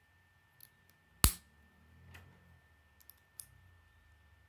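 K'nex plastic rods and connectors clicking as they are snapped together by hand: one sharp loud snap about a second in, with a few lighter clicks and some handling rustle.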